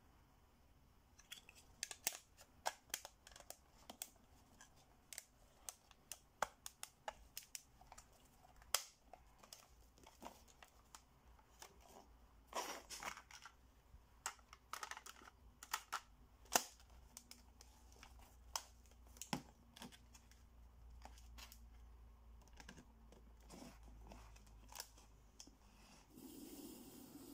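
Quiet clicks, taps and rattles of a Sony Walkman cassette player's plastic and metal parts being handled: battery cover, hinged cassette door opened and shut, cassette loaded. Near the end a steady hiss with a low hum comes on.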